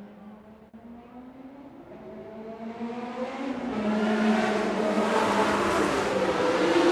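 Car engine speeding up and drawing nearer: its note rises and grows louder from about two seconds in, then holds steady at full volume as engine and road noise fill out.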